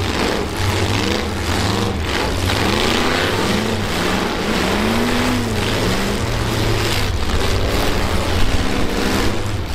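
Several half-ton pickup truck engines in a demolition derby revving up and down together under load over a steady low exhaust rumble.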